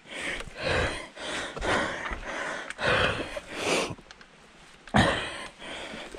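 Mountain biker breathing hard, a noisy breath roughly once a second, with a sudden louder burst about five seconds in.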